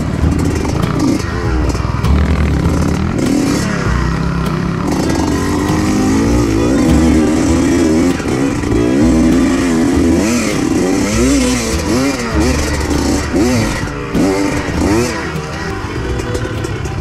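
Trail motorcycle engine being ridden, revving up and down over and over, its pitch rising and falling every second or so.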